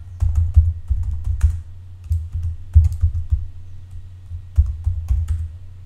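Typing on a computer keyboard: three quick runs of keystrokes with short pauses between them.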